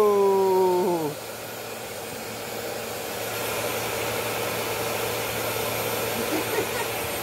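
Bissell CleanView Swivel Pet bagless upright vacuum running on a rug, a steady rushing hum of suction. For about the first second a loud tone sounds over it, sliding slowly lower and cutting off.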